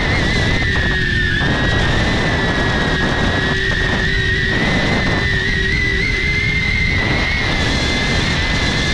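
DJI Avata drone's propellers and motors whining steadily, recorded by a GoPro mounted on the drone: a high whine that wavers slightly in pitch with throttle, over a constant rush of prop wash and wind.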